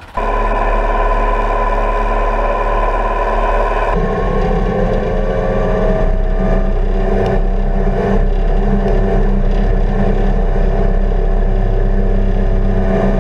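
Deutz tractor's air-cooled diesel engine running steadily. About four seconds in, the sound switches to the engine heard from inside the cab while the tractor drives along, its pitch rising slowly for a few seconds as it picks up speed, then holding steady.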